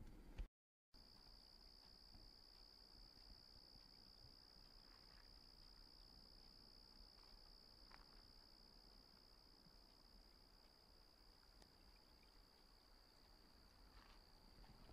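Faint insects trilling in one steady, unbroken high-pitched note that starts about a second in.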